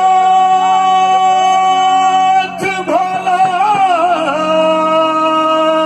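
Maithili Shiv bhajan music with long sung notes: one note held for about two and a half seconds, then a short break and a second, slightly wavering held note.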